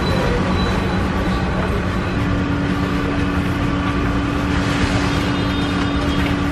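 Steady mechanical drone with a low hum throughout; a second, slightly higher hum joins about two seconds in.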